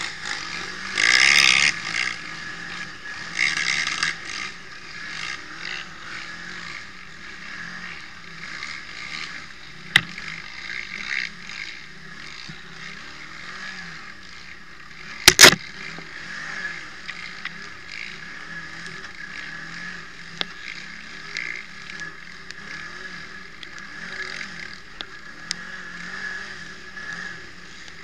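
Quad bike (ATV) engine running under changing throttle, its pitch rising and falling as it is ridden over a dirt track. A loud burst of noise comes about a second in, and there are a few sharp knocks, the loudest about fifteen seconds in.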